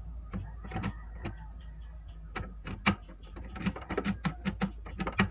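Brother DCP-T700W inkjet printer's mechanism working: a small motor running with an irregular run of clicks and knocks from its gears and carriage, coming thicker and faster over the second half.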